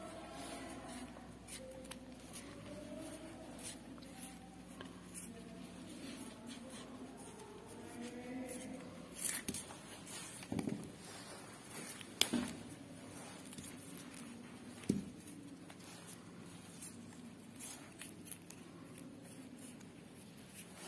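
Quiet handling sounds of stretchable green floral tape being wrapped around the wire stem of a paper flower: soft rustling, with a few sharper crinkles and taps between about nine and fifteen seconds in.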